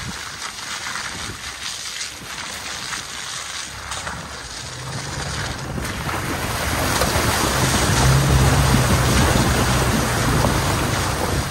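Toyota pickup truck driving through a large muddy puddle: its tyres slosh and splash the water over the engine's low hum. A rushing noise is there first, and the splashing grows loudest about eight seconds in.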